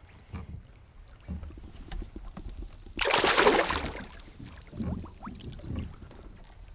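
A hooked trout thrashing and splashing at the surface beside the boat for about a second, the loudest sound, with a few short low knocks of water against the boat before and after.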